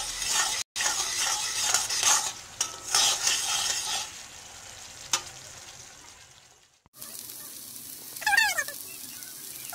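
Chopped onions sizzling in soy and tomato sauce in a pan while a metal spatula stirs and scrapes the pan. After a brief cutout, boiled fusilli pasta is stirred into the sizzling sauce, with a short squeak about eight seconds in.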